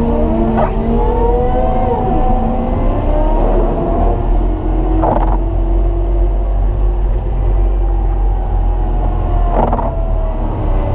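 Caterpillar 926M wheel loader's diesel engine working under load while pushing heavy snow, with a whine that rises and falls as the revs change. Short clunks come about a second in, around five seconds and near the end.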